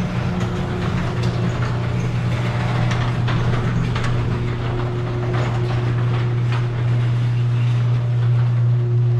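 Electric garage door opener running steadily as a sectional garage door rises, its motor humming loudly with the door's rollers clicking and rattling in the tracks.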